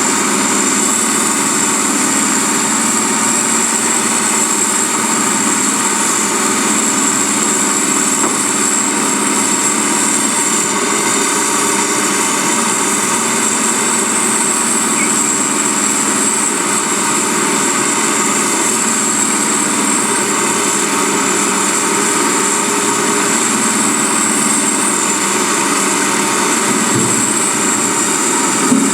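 Backhoe loader running steadily: a continuous engine hum that stays at one speed, with a steady high whine over it.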